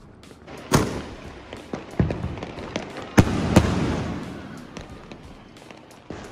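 Sony Fireworks Huggy Muggy dual-ball sky shot shells bursting overhead: sharp bangs about a second apart, with two close together about three seconds in, followed by a fading crackling hiss.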